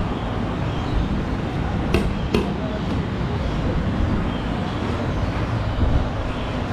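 A steel ladle clinks twice against the steel tray and serving bowl about two seconds in, over a steady hum of street traffic.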